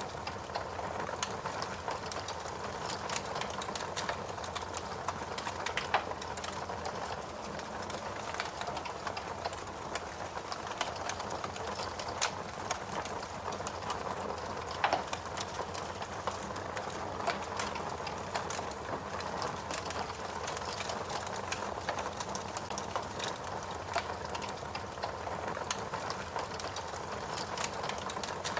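Fire crackling: a steady hiss with dense small pops and snaps, a few louder pops standing out.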